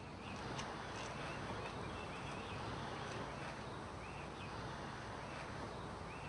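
Quiet outdoor ambience: a steady background hiss with faint, scattered bird chirps.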